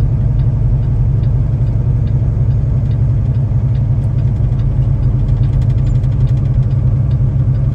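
Semi truck's diesel engine droning steadily at low road speed, heard inside the cab, with faint light ticking over it.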